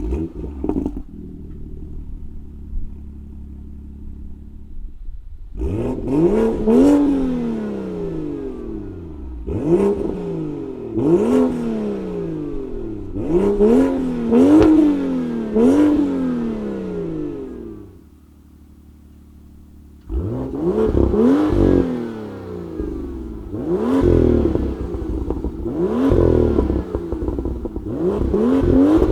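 BMW M2's N55 turbocharged straight-six idling steadily, then blipped several times in quick succession, each rev climbing sharply and falling back to idle. After a short break a second run of revs follows, with a heavier low-end rumble.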